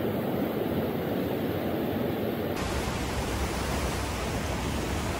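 Surf washing in over the shallows: a steady rushing noise, which turns fuller and deeper about two and a half seconds in.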